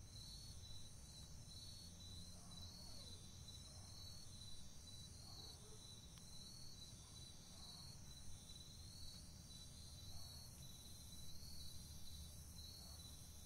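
Faint night insect chorus: crickets trilling in a steady pulsing rhythm over a low rumble.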